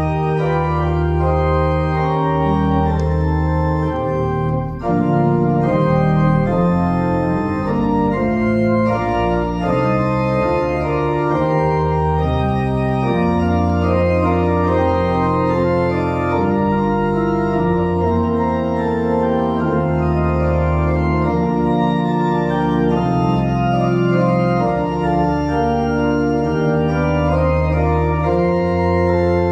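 Organ playing the postlude at the close of the service: full sustained chords over held bass pedal notes.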